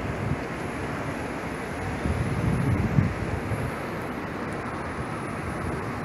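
Steady outdoor noise of a snowbound city street in a blizzard, with wind buffeting the microphone in a low, uneven rumble that swells about two seconds in.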